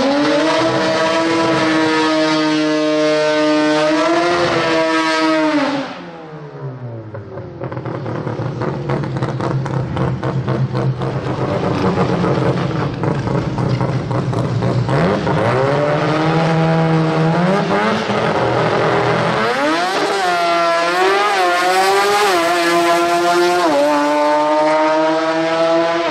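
Mazda R100's naturally aspirated 13B rotary engine at a drag strip. It is held at high revs for about six seconds, then drops away to a choppy, lumpy idle while the car rolls up to the line. It is brought up on the revs again, then launches about nineteen seconds in, screaming up through the gears with rapid climbs in pitch broken by short drops at each shift.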